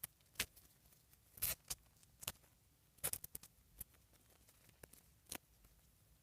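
Faint, irregular small clicks and taps of a plastic doll and its dress being handled while the dress is worked on.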